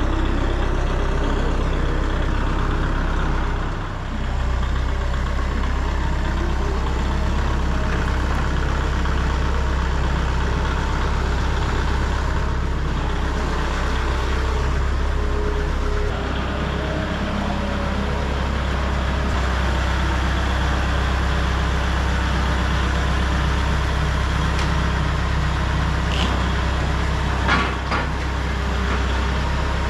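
Forklift engine running steadily at a low idle, with a single clank near the end.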